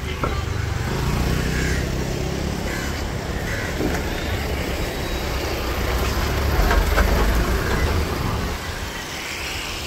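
Road traffic close by: a small taxi car's engine pulling past in the first couple of seconds, then a motor scooter's engine passing close, loudest about seven seconds in.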